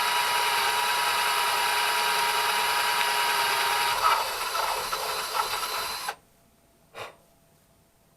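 Electric drill boring a hole in a wooden drawer front, a steady whine for about four seconds, then running unevenly for two more seconds before it stops. A single short knock follows about a second later.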